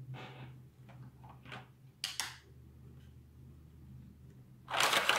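Soft, intermittent rustling and handling noises from hands sorting diamond painting supplies, with a louder rustle near the end, over a steady low hum.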